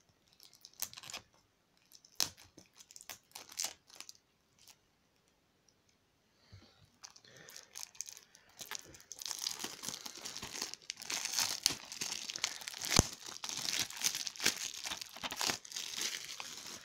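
Cellophane shrink-wrap being torn and peeled off a DVD case. There are a few scattered clicks and taps at first, then from about six seconds in a continuous crinkling and tearing of the thin plastic that gets louder toward the end.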